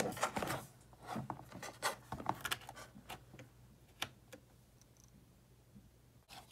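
Faint clicks, taps and scrapes of a USB plug being handled and pushed into a laptop's USB port, most of them in the first four seconds.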